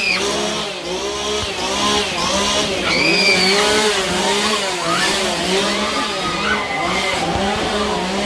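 Several chainsaws revving over and over at once, their pitch rising and falling in overlapping waves over a steady low hum.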